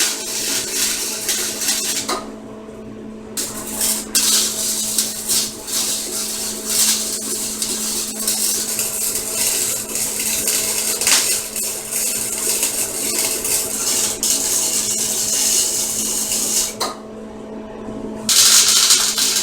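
Wire-feed welder laying a weld: the arc crackles and hisses over the machine's steady hum, stopping briefly about two seconds in and again near the end as the trigger is let off between beads.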